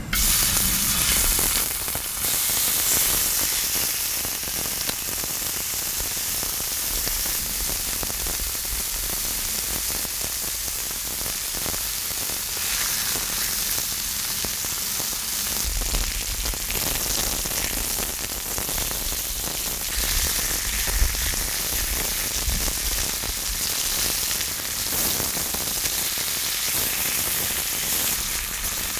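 Pork belly steadily sizzling and spitting in its fat on a cast-iron cauldron-lid griddle.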